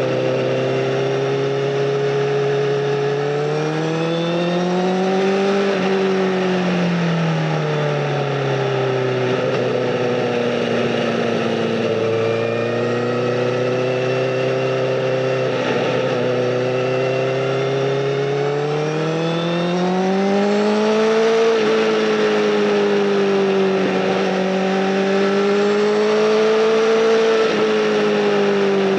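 Honda CBR1000RR Fireblade SC59 inline-four engine through a Bodis aftermarket exhaust, heard from the bike while riding. The engine pitch climbs and falls smoothly a few times as the throttle is rolled on and off, with no sharp revs, over a steady rush of wind.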